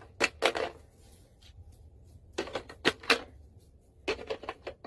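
Three short clusters of sharp clicks and knocks, the first right at the start, one about two and a half seconds in and one near the end, with quiet gaps between them.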